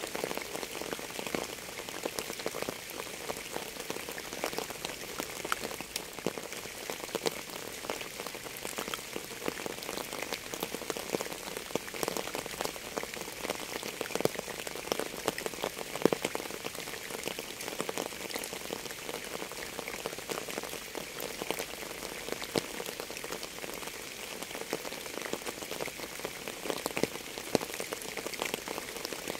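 Steady rain falling, with many separate drops ticking against a surface and a few louder single drops standing out.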